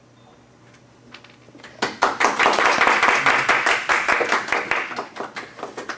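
A small audience clapping: a few scattered claps, then dense applause from about two seconds in that thins out and dies away near the end.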